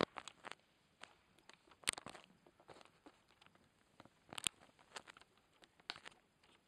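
Irregular sharp clicks and light taps of a table tennis ball bouncing and being handled between points, with a few footsteps on the sports-hall floor. The loudest clicks come about two seconds in and halfway through.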